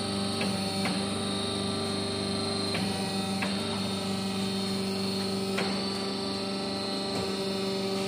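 Steady electrical machine hum made of several held tones, with a few light clicks scattered through it.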